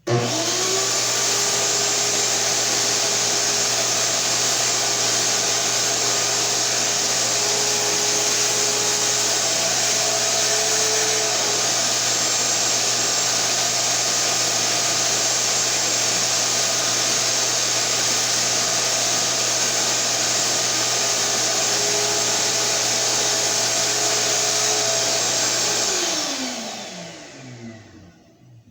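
Shop-Vac Super 1300 wet/dry vacuum switched on: its motor spins up in a moment and runs steadily at full speed with a loud whine and rush of air. About 26 seconds in it is switched off and the whine falls away as the motor spins down.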